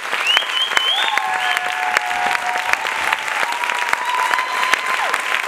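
Theatre audience applauding, dense clapping throughout, with several long whistles over it, one rising high near the start.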